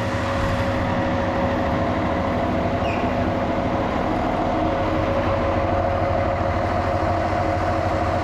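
John Deere 7405 tractor's diesel engine idling steadily just after a cold start.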